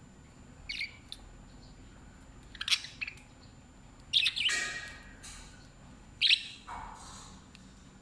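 Budgerigars chirping: about five short, sharp calls spaced through a few seconds, the loudest about a third and three quarters of the way in.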